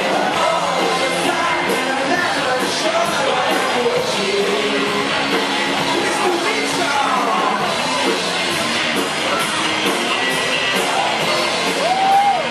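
Live rock band playing: electric guitars and drums with a man singing into the microphone.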